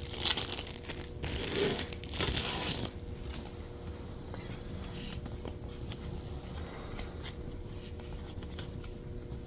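Plastic wrapping on a pack of trading cards tearing and crinkling as it is opened, for about the first three seconds; after that only faint handling sounds over a low steady hum.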